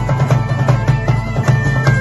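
Live medieval-style folk music: a shawm playing a reedy melody over a strummed string instrument, with a large drum beating a steady, quick rhythm.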